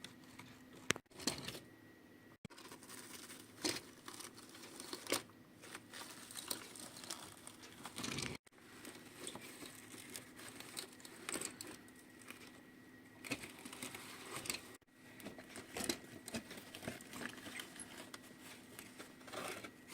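Small diecast and plastic scale-model toys being handled and moved about: irregular light clicks, taps and rustles over a faint steady hum, broken by several abrupt cuts.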